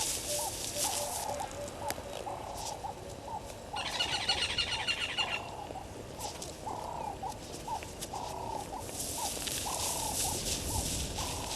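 Wild birds calling: a low looping call repeated about twice a second, with a brief burst of rapid high chirps about four seconds in, over a high hiss that swells and fades.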